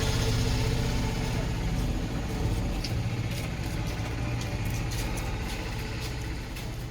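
A motor vehicle's engine running steadily, slowly fading away, with a few light clicks from about a second and a half in.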